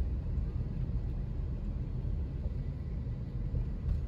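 Steady low rumble of a moving vehicle: engine and road noise with no distinct events.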